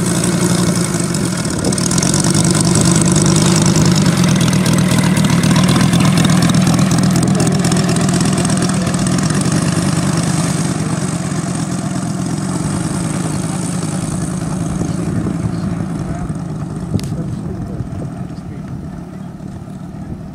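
Engine of a radio-controlled scale T-28 Trojan model airplane running steadily as it taxis with its propeller spinning, growing gradually fainter over the last several seconds.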